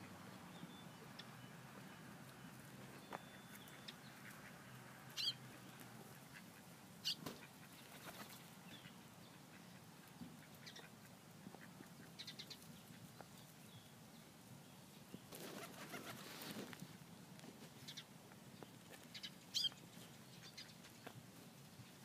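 Quiet outdoor ambience with a few short, high-pitched bird chirps, the clearest about five, seven and nineteen seconds in, and a brief rustle around sixteen seconds in.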